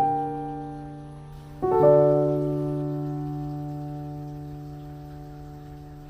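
Soft background piano music: a note struck at the start and a chord about a second and a half in, both left to ring and slowly fade away.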